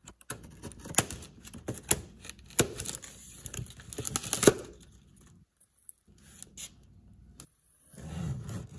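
Packaging being opened by hand: a rapid, uneven series of sharp snaps and crackles for about four and a half seconds, then quieter rustling.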